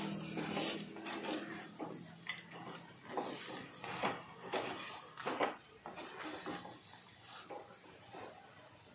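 Wooden spatula scraping and knocking against the inside of a clay pot, in irregular strokes, as crab masala is stir-fried.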